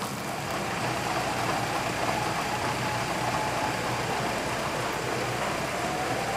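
Fire engine's motor running steadily, with a siren tone in the background that sinks slowly in pitch and then winds back up from about five seconds in.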